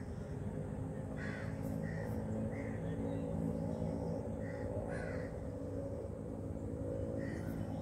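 Birds calling outdoors: short calls repeated irregularly, roughly once a second, over a steady low background rumble.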